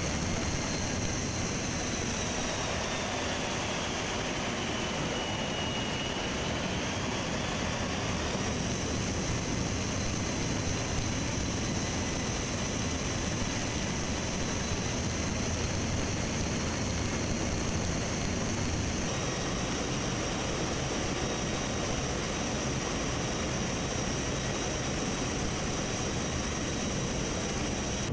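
Boeing C-17 Globemaster III in flight, heard from inside the cargo hold with the paratroop door open: a steady rush of engine and wind noise with a high turbine whine through it. The whine dips in pitch a few seconds in and climbs back.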